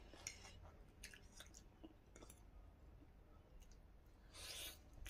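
Faint chewing, with a few light clicks of a metal spoon against a plate and a short breath about four seconds in.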